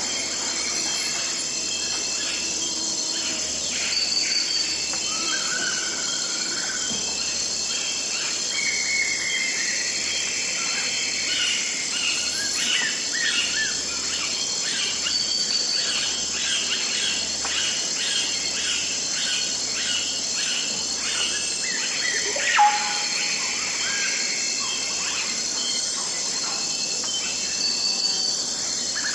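Tropical rainforest dawn ambience: a steady high drone of insects with many birds calling over it in short whistles and chirps, and one louder falling call about three-quarters of the way through.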